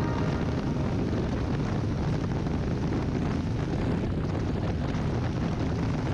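Steady wind noise on the microphone of a motorcycle riding at road speed, with engine and road noise beneath it.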